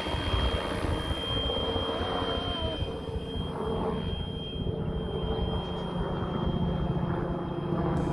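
A 450-size electric RC helicopter in flight: a steady high whine from the brushless motor over the hum of the spinning rotors, with a low rumble underneath.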